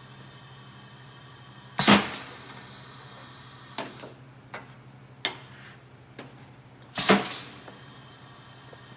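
Pneumatic tabletop piston filler cycling: a sharp burst of air hiss with a clunk about two seconds in and again about seven seconds in as the piston and valve shift, over a steady low hum. In between, a few light clinks of glass hot-sauce bottles being moved.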